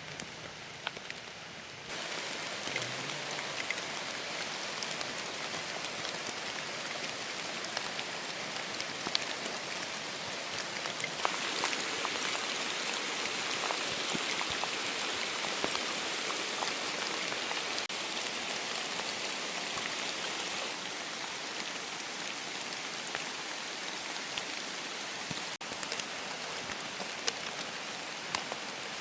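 Steady rain falling, with scattered drops ticking on surfaces. It grows louder about two seconds in and is heavier for a stretch in the middle.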